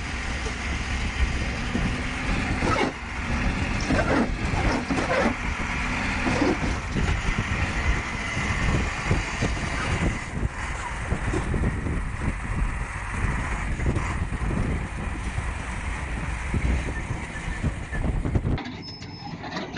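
Diesel engines of a crawler bulldozer and a heavy truck running hard under load in mud, a dense continuous rumble with scattered knocks and clanks. It drops away abruptly near the end.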